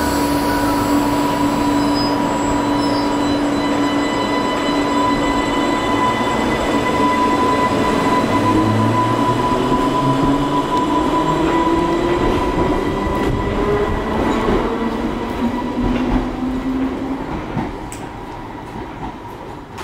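Class 484 electric train running past the station platform, its traction motors whining steadily and then rising in pitch as it accelerates away; the sound fades near the end.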